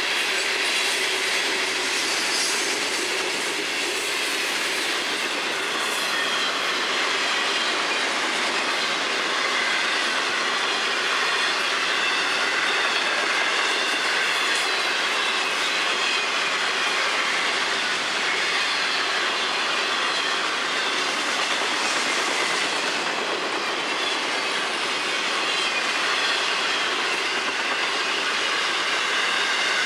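Long freight train's cars rolling past on the rails: a steady, loud rush and rumble of steel wheels on track, with a thin wavering wheel squeal running through it.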